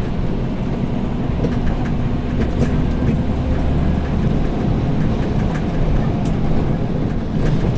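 Scania P360 dump truck's diesel engine running steadily with a low hum as the truck drives, heard from inside the cab, with scattered light rattles.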